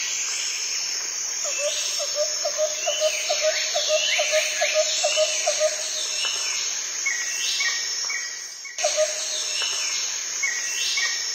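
Outdoor insect chorus, a steady high buzzing, with repeated bird chirps over it. A lower call pulses about five times a second from about a second and a half in to about six seconds in, and the whole soundscape briefly dips near nine seconds in.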